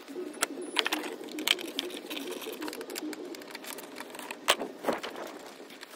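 Socket ratchet clicking rapidly as the airbox's 10 mm bolts are backed out, with a few louder clicks and knocks of the tool against the fittings.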